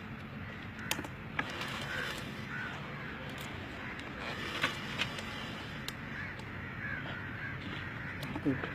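Crows cawing repeatedly, with a few sharp clicks now and then over a steady low background hum.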